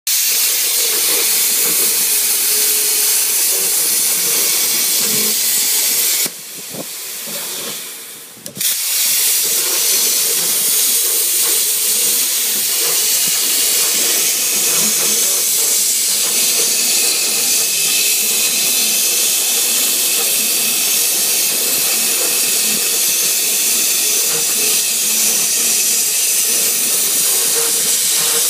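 A loud, steady hiss that drops away for about two seconds some six seconds in, then comes back unchanged.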